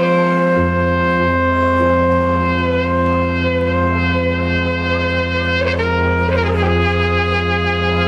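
Music with long held brass chords over a sustained low bass note, the chord shifting twice.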